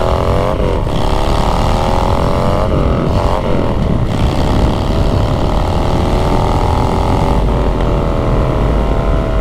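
2020 Harley-Davidson Street Bob's V-twin engine running under way, its pitch climbing and dropping back several times, over wind rumble on the helmet microphone.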